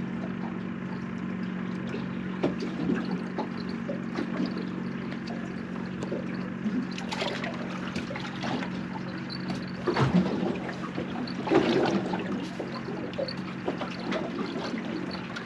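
Small waves lapping and slapping against a boat's hull, with louder splashes now and then, over a steady low hum.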